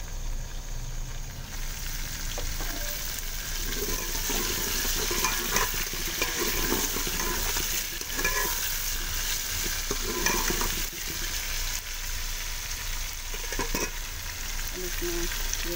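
Chicken, onions and potato cubes frying in oil in a metal pot, sizzling steadily; the sizzle gets brighter about a second and a half in. A metal ladle stirs and scrapes against the pot in irregular strokes through the middle.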